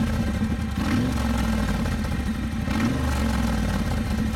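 Triumph Bonneville T120's 1200 cc parallel-twin engine running through brass exhaust tips fitted in place of the stock silencers, idling with a rough, guttural bark as the throttle is blipped about a second in and again around three seconds in.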